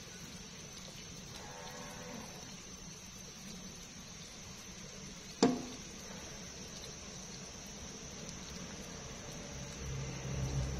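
Pot of broth simmering with a soft, steady hiss. About five seconds in a spoon clinks once, sharply, and a low hum comes in near the end.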